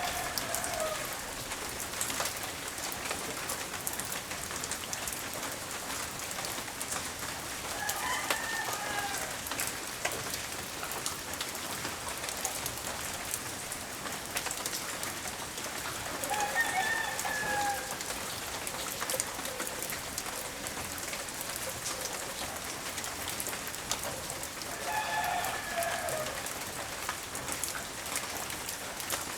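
Steady rain falling, with many drops pattering. A rooster crows four times, about every eight seconds.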